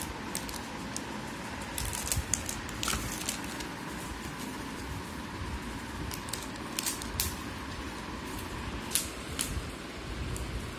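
Plastic jewellery packets and a cardboard box being handled: scattered light crinkles and ticks over a steady background hiss.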